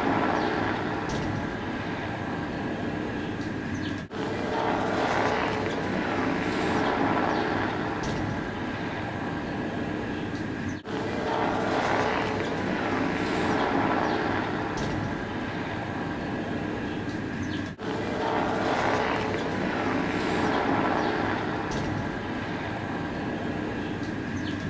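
A steady droning roar like a distant engine, swelling and easing about every two seconds and dropping out briefly three times. The recordist takes it for the noise of an aircraft that cannot be seen overhead.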